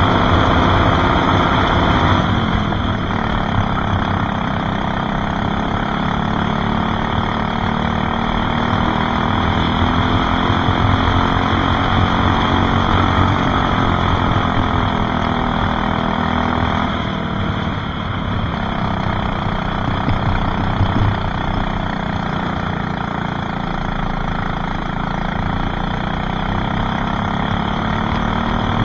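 Racing kart engine under hard throttle, heard onboard. Its pitch drops as the kart slows for corners, about two seconds in and again about seventeen seconds in, and climbs back up along the straights.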